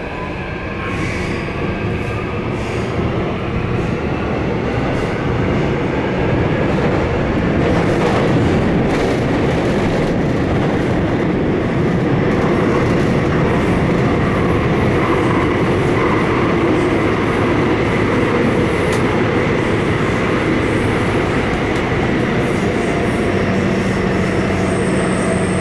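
A Seoul Subway Line 7 train heard from inside the car as it runs between stations. A faint motor whine rises at the start while the train picks up speed, and the noise builds over the first several seconds. It then settles into a steady rumble of wheels on rail.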